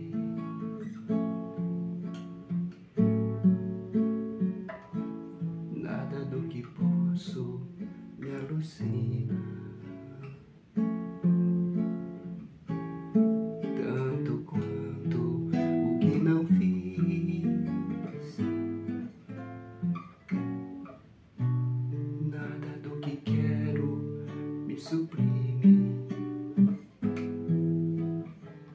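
Classical guitar played alone, plucked chords and melody notes ringing and dying away in slow phrases.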